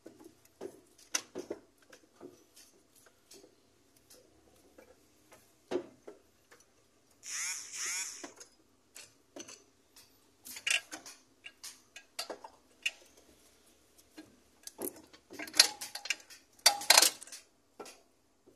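Scattered clinks, taps and knocks of hand tools and metal parts being worked on a Proton Persona's gearbox in the engine bay, with a brief rasping burst about seven seconds in and a cluster of sharper clanks near the end.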